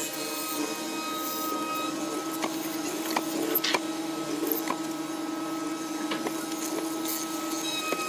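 Electric motor of a chisel mortising machine running with a steady hum. A few sharp knocks come in the middle.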